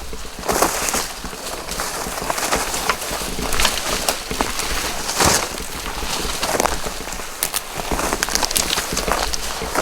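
Footsteps crunching over the ground with rustling of brush and clothing close to the microphone, in an irregular run of short crunches.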